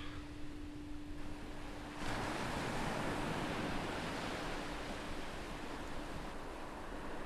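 Ocean surf washing onto a beach, swelling as a wave breaks about two seconds in. A low steady ringing tone fades out around the same time.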